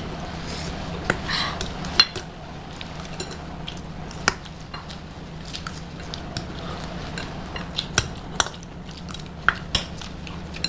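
Spoons clinking and scraping against plates in quick, irregular clicks as pasta is eaten, over a steady low hum.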